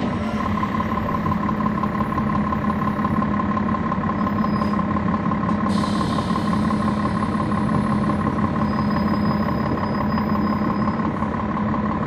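Cummins ISL9 diesel engine of a 2011 NABI 40-SFW transit bus heard on board with the HVAC off, running with a steady drone and a higher whine. A brief hiss about six seconds in.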